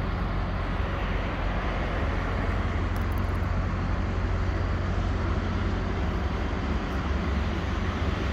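Scania 770S's 16.4-litre V8 diesel idling steadily, deep and low.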